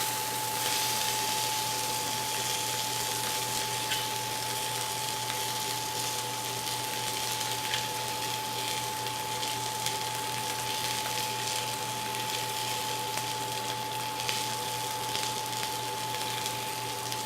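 Salmon fillets sizzling in a hot frying pan: a steady hiss with a few small pops of oil. A steady high whine runs underneath.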